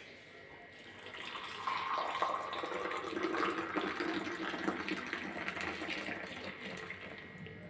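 Hot tea poured in a stream into a clay kulhad cup, frothing as it fills. The pour starts about a second in and fades toward the end.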